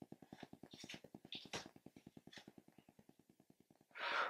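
Faint, fast ticking static from a faulty camera microphone, about ten clicks a second, dying away around three seconds in. Near the end comes a short breathy hiss.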